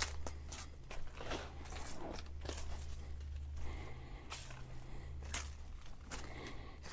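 Footsteps crunching through dry leaves and brush on a woodland trail, an uneven series of crackles and snaps, over a steady low rumble.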